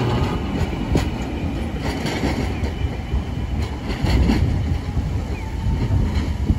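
Toyama Chiho Railway 7000-series streetcar running away over the track. A low rumble is broken by a series of sharp clacks as its wheels cross the rail joints and junction crossings.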